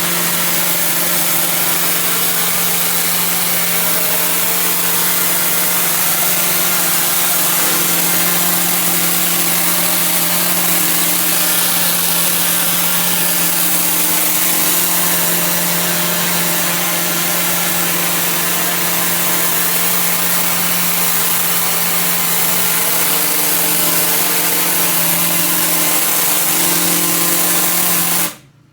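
Hot-water pressure washer running steadily, its engine humming under the loud hiss of the high-pressure spray. The sound cuts off suddenly near the end.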